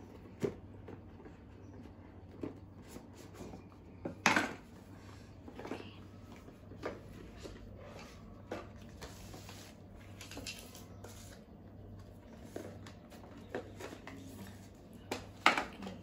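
A smartphone's cardboard retail box being handled and unpacked by hand: scattered light taps, scrapes and rustles of cardboard, with a louder knock about four seconds in and another near the end as the phone is lifted out. A steady low hum sits underneath.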